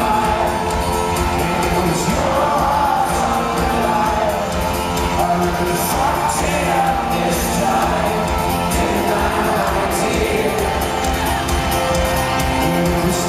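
Live folk-rock band playing banjo, acoustic guitar, double bass and keyboard, with singing over the top, at a steady loud level.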